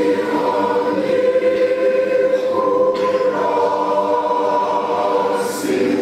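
Large mixed choir singing a hymn in Shona, unaccompanied, holding long chords that shift about three seconds in and again near the end.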